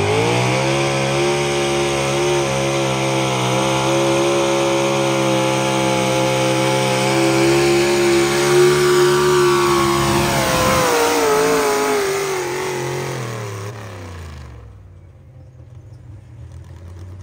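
Pulling truck's engine at full throttle under load, holding one steady high pitch for about ten seconds, then winding down with a falling pitch as the pull ends. The sound drops away sharply about three quarters of the way through.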